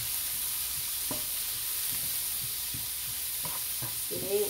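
Swiss red chard stir-frying in a nonstick skillet: a steady sizzle, with a wooden spatula now and then scraping and knocking against the pan as the greens are tossed.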